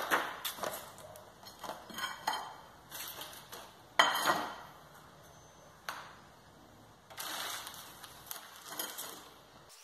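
Thin clear plastic food trays clicking and knocking as they are pulled apart and set down on a ceramic plate, with the sharpest knock about four seconds in. A longer rustle follows near the end.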